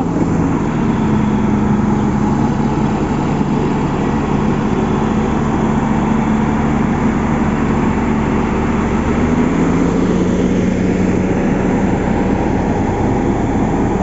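Heavy diesel road machinery running steadily: the engine of a SANY motor grader working close by, together with a road roller compacting the gravel bed, a continuous low drone.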